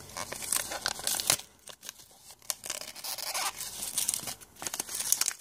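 Shiny gift-wrapping paper being torn open and crinkled by hand, in a series of irregular rustling bursts.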